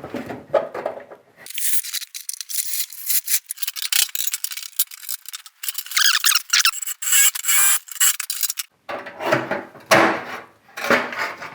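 Metal scraping and squealing in quick, short strokes as rivets are worked out of an old metal tackle box, with a thin squeal a little past the middle.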